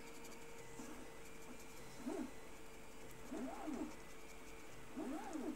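Pigeon cooing faintly: three coos about a second and a half apart, each rising and then falling in pitch, over a faint steady hum.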